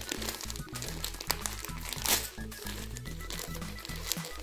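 Gift wrapping crinkling and rustling as a package is opened by hand, with a louder burst of rustling about two seconds in. Background music with a steady, stepping bass line plays underneath.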